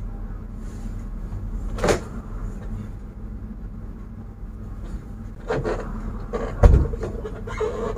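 Knocks and thumps from a heavy wooden-framed sofa being handled and its cloth slipcover tucked in, the loudest a deep thump about two-thirds of the way in, then cloth rustling. A steady low hum runs underneath.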